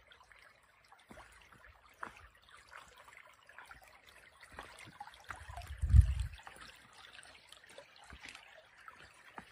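Shallow, rocky creek trickling faintly over stones. About six seconds in there is a single short, low thump.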